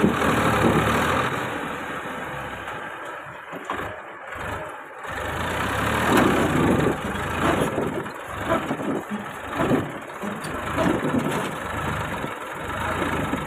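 Massey Ferguson 1035 DI tractor's three-cylinder diesel engine running and revving up and down as the tractor, hitched to a loaded trolley, strains to climb out of a rut. It eases off between about three and five seconds in, then picks up again in surges.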